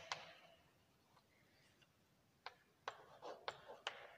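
Chalk clicking against a blackboard during writing: two sharp taps at the start, a quiet stretch, then a quick run of about six faint taps in the second half as new words are begun.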